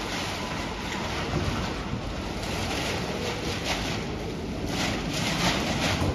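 Steady rushing noise that swells and fades, wind buffeting the microphone.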